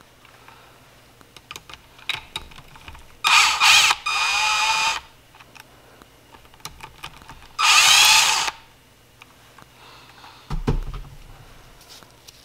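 A small cordless power tool with an 8 mm socket runs in two short bursts, backing out the cam chain tensioner bolts on a Yamaha YZ250F engine. The first burst settles into a steady whine and the second speeds up and slows. A dull knock comes near the end.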